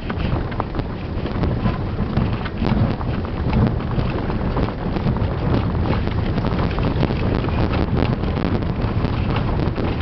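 Inside a van driving over a rough, wet dirt road: steady engine and tyre rumble with many short knocks and rattles from the bumps.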